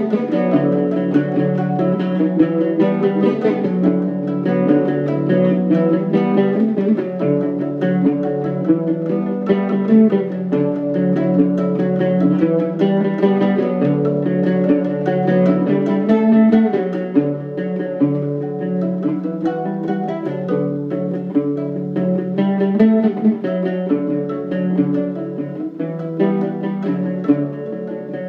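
Instrumental duet on two plucked string instruments: an oval-bodied mandola-type with paired strings and a pear-shaped, round-holed one. It is a continuous flow of picked melody notes over a steady low bass note.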